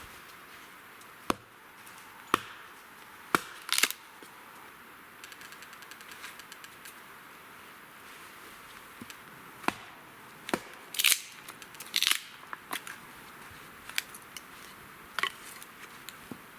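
Hults Bruk Salen hatchet chopping firewood: about a dozen sharp, irregularly spaced strikes and cracks of wood, the loudest two a little past the middle.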